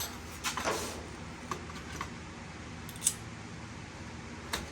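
Small metal clicks and scraping from hand work on a door lock mechanism: a short scrape about half a second in, then a sharp click near the middle and another near the end.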